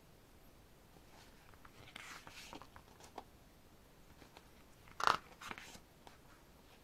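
Pages of an album photobook being turned by hand: a soft paper rustle about two seconds in and a louder, sharper page flip about five seconds in, with a few light handling clicks.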